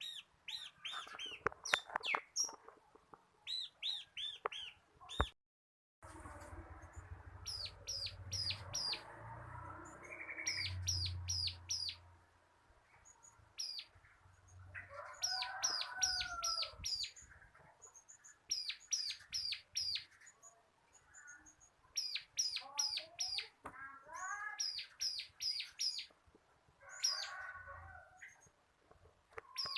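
Bar-winged prinia (ciblek) singing: fast runs of high, sharp chirps repeated in bursts, with a few lower, curving calls between them. The sound cuts out completely for about half a second around five seconds in.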